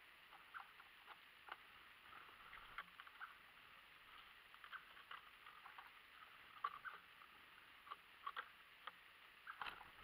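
Faint small songbirds calling: irregular short chirps and ticks, a few a second at most, over a low steady hiss.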